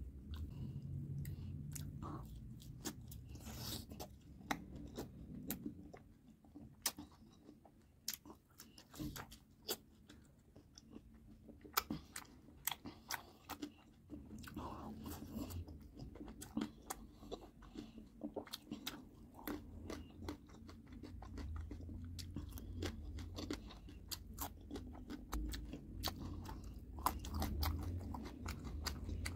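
A person eating orange segments: frequent irregular wet clicks and crunches of biting and chewing, mixed with the peel and pith being pulled apart.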